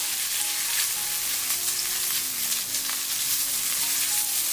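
Shredded ginger sizzling gently in a little oil in a nonstick wok over low heat, stirred with a spatula: the stage of frying the ginger to draw out its aroma. A steady, even sizzle.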